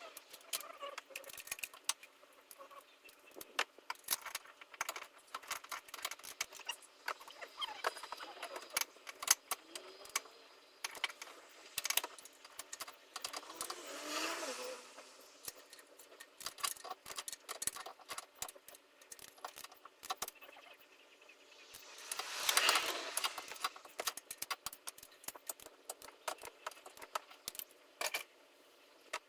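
Metal hand tools, sockets and bolts clinking and rattling in quick, irregular clicks as the engine is worked on, with two louder, scratchy swells along the way.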